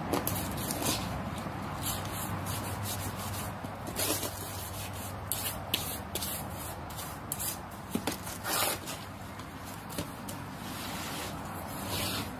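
Irregular rubbing and scraping sounds over a steady low hum.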